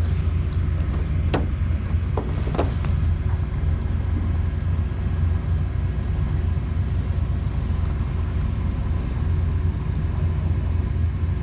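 Steady low rumble, with a few brief faint clicks in the first few seconds.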